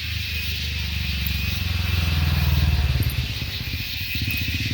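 Insects in the trees making a steady, shrill chirping drone. Under it, a low pulsing engine rumble, like a motorbike, swells in the middle and fades, and it is the loudest sound.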